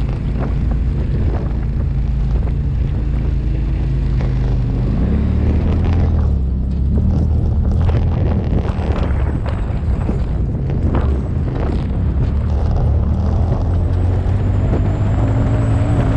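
Off-road vehicle's engine running steadily as it drives a rough dirt trail, its pitch climbing about five seconds in as it speeds up. Scattered knocks and crunches come from the tyres over rocks and gravel.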